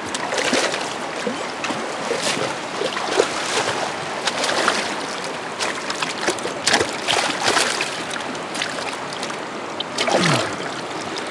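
Shallow river water running steadily, with repeated splashes and slaps as a hand reaches into the water to grab a hooked smallmouth bass. A short falling sound near the end.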